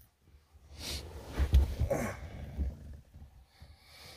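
Low road rumble inside a moving vehicle's cabin, with a few short breathy puffs from a person, the loudest about two seconds in.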